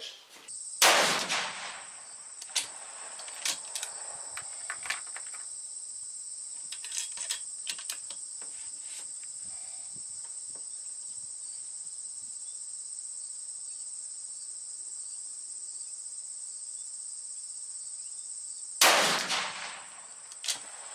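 Two rifle shots from a Sako bench rest rifle in 6PPC, about eighteen seconds apart, each ringing out for about a second. Between them come small clicks of handling and a steady high insect chorus.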